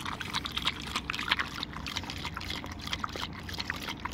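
A dog lapping water from a small hand-held bowl: a quick, irregular run of wet laps and splashes.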